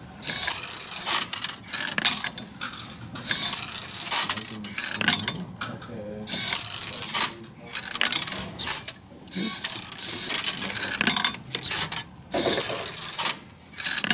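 Small metal pieces clinking and rattling through a robot built from perforated metal kit parts, in a string of short bursts with brief pauses between them.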